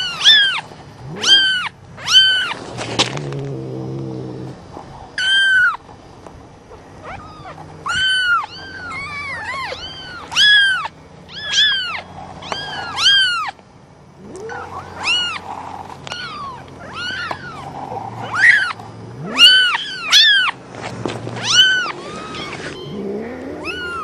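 Kittens about three weeks old mewing over and over: short, high-pitched calls that rise and fall, about one a second, some overlapping one another.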